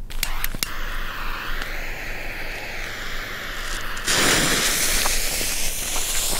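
Lesli Sputnik howler firework firing from its tube: a few sharp crackles as it ignites, then a wavering, hissing howl as the projectile climbs. About four seconds in, a much louder, brighter rushing hiss starts.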